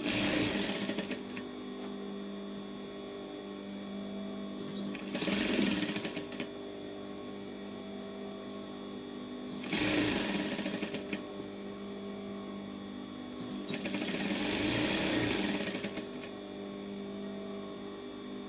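Industrial lockstitch sewing machine stitching through fabric in four short runs of about one to two seconds each, its motor humming steadily between the runs.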